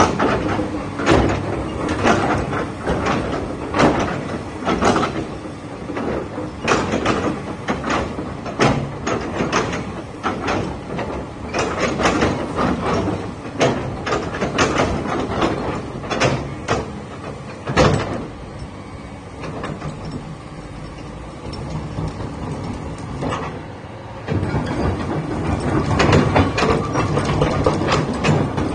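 Komatsu PC400 hydraulic excavator working: its diesel engine runs steadily under many sharp knocks from the moving boom and bucket. Near the end the engine gets louder and heavier as the bucket is pushed into the ground to lift the tracks.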